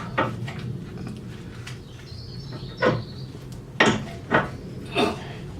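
Five irregular metallic knocks and clanks of hand tools working on a car's rusted suspension parts: one just after the start, then four close together in the second half.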